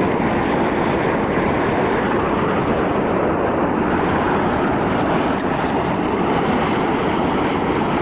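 Fast glacial river, the Kicking Horse River, rushing through rapids and pouring through a narrow rock channel: a loud, steady roar of white water.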